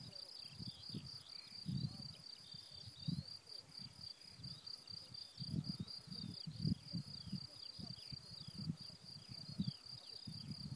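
Meadow insects such as crickets giving a steady, high, fast-pulsing trill. Irregular low gusts of wind buffet the microphone.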